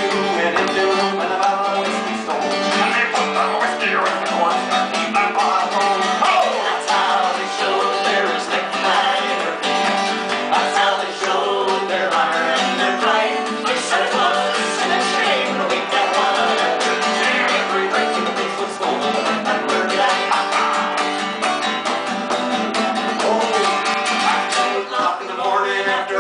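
Acoustic guitars strummed in a lively Celtic folk song, with singing into microphones over them.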